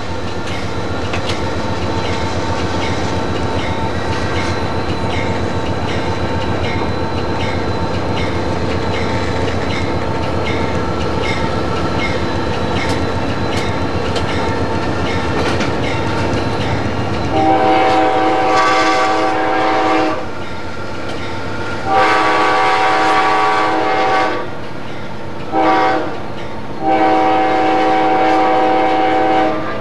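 Amtrak P40-8 locomotive heard from the cab, running steadily with a regular clickety-clack of wheels over rail joints. About halfway through, its multi-tone air horn sounds the grade-crossing signal: long, long, short, long.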